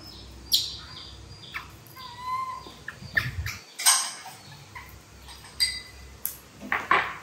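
A baby macaque's short, high squeaks, a few times, among sharp knocks of things handled on a stone countertop, the loudest knocks about half a second in, near four seconds and twice near the end.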